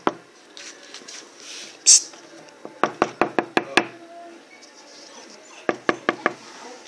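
Two quick runs of sharp knocks, about six or seven strikes a second: the first a little under three seconds in, the second near the end. There is a short loud hiss about two seconds in.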